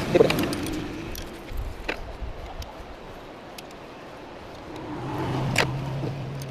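Scattered light metallic clicks and taps of hand tools working on the engine's valve gear during a tappet clearance adjustment, with a steady low hum coming in during the last second and a half.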